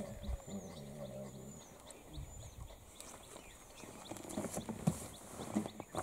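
A faint low murmuring voice in the first second, with a small bird's short high chirps repeating about once a second. A few soft clicks come near the end.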